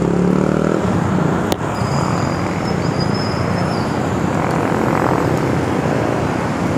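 Steady road traffic: motorcycles and cars passing on a busy road close by, with an engine hum fading away in the first second. A single sharp click about a second and a half in.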